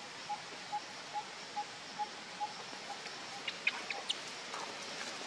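A bird repeating a short, even note a little over twice a second, fading out after about three seconds, then a few brief higher chirps, over a steady outdoor hiss.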